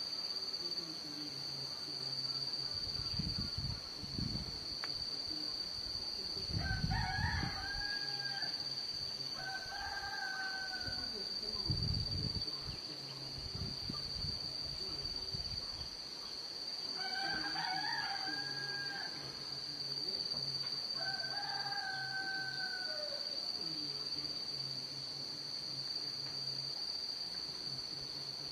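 Rooster crowing four times, in two pairs a few seconds apart. A steady high-pitched whine runs underneath.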